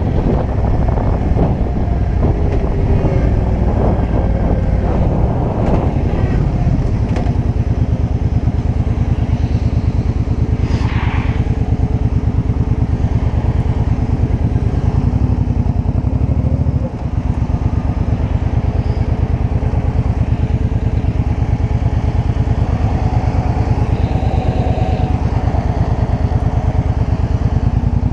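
Suzuki Boulevard C50's 805 cc V-twin running under wind noise on a helmet-mounted microphone as the bike slows, then idling with a steady low, even beat while stopped in traffic.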